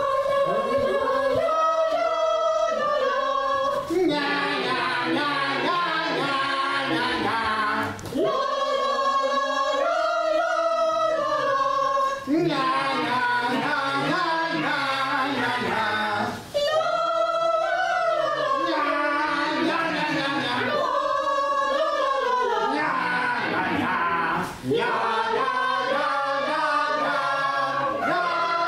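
A group of voices singing without instruments, in phrases broken by short pauses about every four seconds.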